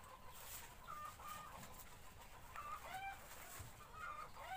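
Domestic chickens clucking faintly in the background: a few short calls spaced about a second and a half apart.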